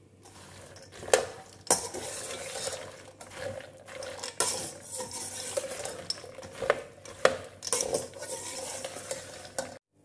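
A metal spoon stirring cashews, almonds and walnuts frying in ghee in a stainless-steel kadai: steady scraping and rattling of the nuts against the pan, with a sharp clink of spoon on steel every second or two and a light sizzle underneath. It cuts off suddenly near the end.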